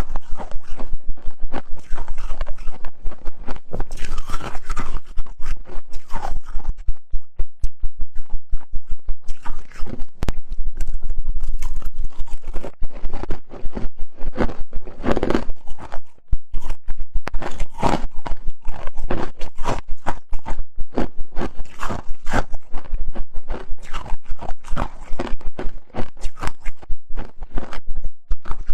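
Freezer frost and ice being bitten and chewed, a loud, rapid, unbroken run of crunches.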